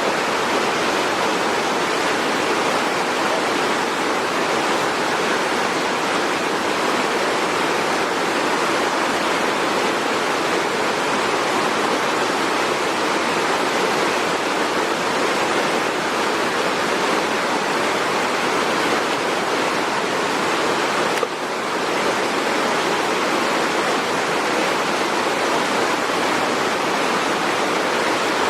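Steady rush of fast-flowing, falling water, with no birds or other distinct sounds standing out. A brief dip about 21 seconds in, where the sound is spliced, and then it carries on unchanged.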